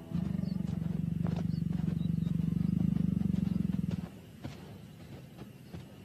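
Lion growling low and rough for about four seconds before it stops; faint scattered ticks follow.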